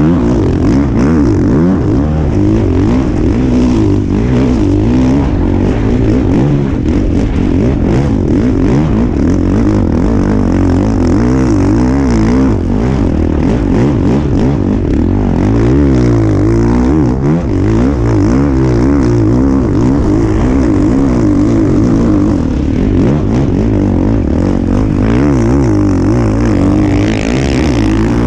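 Motocross bike engine heard up close from the bike itself, revving hard and easing off over and over as it rides a sand track, its pitch rising and falling with each burst of throttle.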